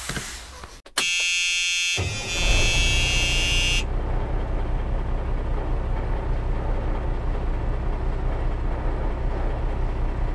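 Electronic end-screen sound effect: a harsh buzzing tone starts abruptly about a second in and lasts about three seconds, over a steady low rumble that begins about two seconds in and carries on.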